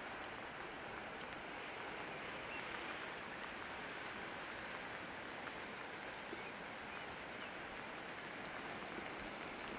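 Steady hiss of light rain and sea on an open coast, with a few faint, short bird calls.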